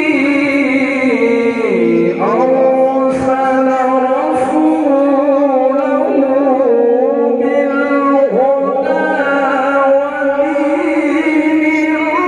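A man's melodic Quran recitation (tilawah) amplified through a microphone: long, ornamented held notes that waver and step between pitches.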